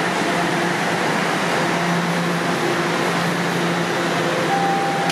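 Toronto Rocket subway train standing at the platform, its ventilation and equipment giving a steady hum with a low drone. A single short steady beep sounds near the end.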